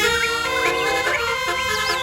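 A telolet-style 'basuri' musical bus horn plays a tune of steady, reedy notes that change pitch in steps. A warbling high whistle joins near the end.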